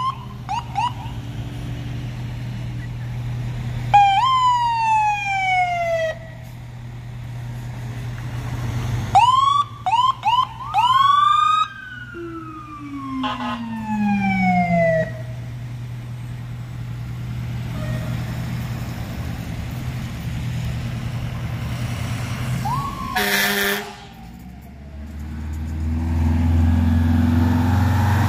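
Emergency-vehicle sirens sounded in short bursts: several wails falling in pitch, and a run of quick rising whoops about ten seconds in, over the steady hum of idling truck engines. Near the end a heavy fire-truck engine grows louder as a ladder truck drives close past.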